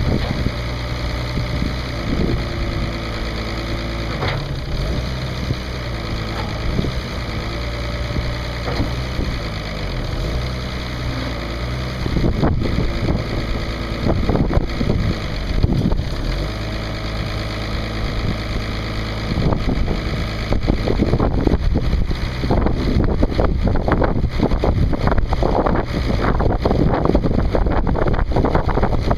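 International 3600 loader backhoe's D282 six-cylinder diesel engine idling steadily, running nicely.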